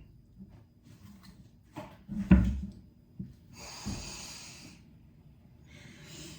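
A couple of soft thumps about two seconds in, then two breathy exhales, a longer one near the middle and a short one near the end.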